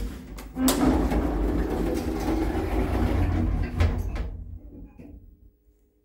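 Lift car's automatic sliding doors running shut after a floor button is pressed, ending in a knock about four seconds in, then fading away.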